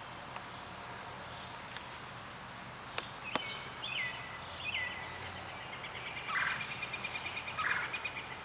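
Songbird calling: a few short, high chirps, then a rapid trill lasting about three seconds, over a steady outdoor hiss. A single sharp click comes about three seconds in.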